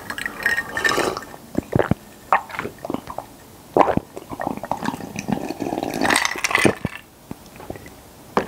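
Close-miked chewing of strawberry mochi ice cream: irregular squishy, wet mouth sounds and smacks.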